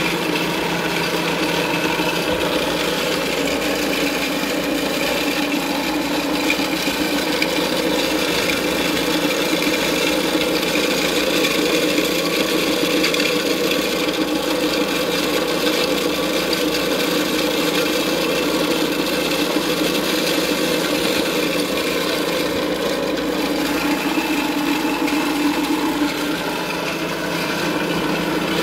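Portable electric dry mill grinder running under load, grinding cracked corn: a steady grinding rasp over the motor's hum, easing slightly near the end.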